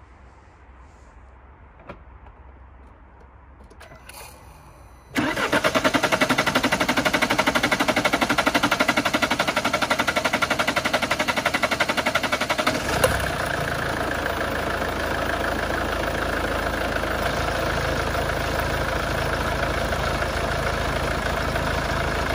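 Mercedes C250 CDI's 2.1-litre four-cylinder diesel being cranked on the starter for several seconds before it catches and settles into a steady idle. The long crank is the fuel system building pressure again after the injector fuel lines were disconnected.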